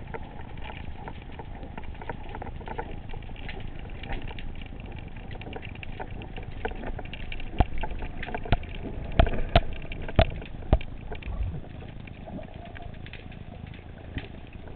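Muffled underwater noise heard along a speargun: a steady low rumble of moving water with scattered sharp clicks and knocks, several louder ones bunched a little past the middle.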